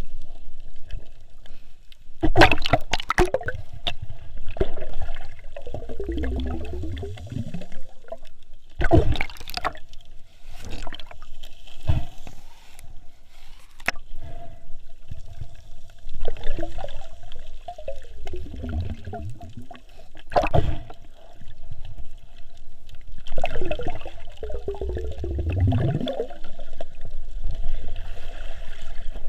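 Water sloshing and gurgling around a snorkeler's camera, with a few sharp knocks and three longer gurgles that fall in pitch.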